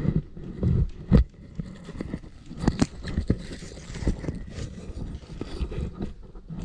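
Irregular knocks, thumps and scrapes from a paintball player crouching and moving through deep snow: handling noise on the body-worn camera, with crunching snow underfoot.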